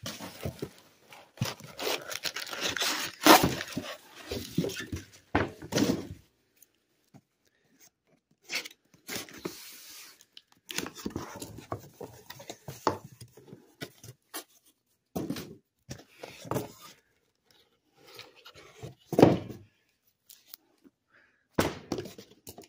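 A cardboard shipping box of comics being opened and unpacked. Tape tearing and packing material crinkling for the first several seconds, then scattered rustling and handling noises, with a louder thump a few seconds before the end.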